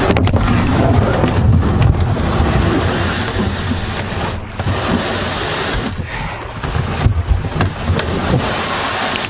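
Kayak being paddled on a river: steady splashing and rushing of water, with wind rumbling on the microphone.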